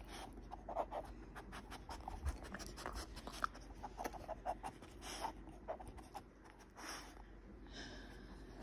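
An Australian shepherd gnawing and pawing at a hard clear plastic toy: faint scratching with irregular small clicks and taps of teeth on the plastic.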